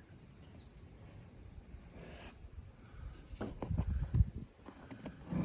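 Handling noise from a rifle being moved about: faint rubbing and scraping, then a cluster of dull low knocks about three and a half seconds in.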